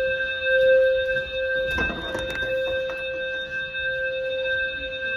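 Fire alarm sounder giving one steady, continuous electronic tone, with a few faint clicks about two seconds in.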